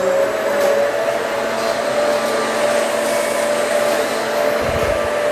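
Hoover Elite Swivel XL Pet upright vacuum cleaner running on a low-pile rug: a steady motor whine over rushing air.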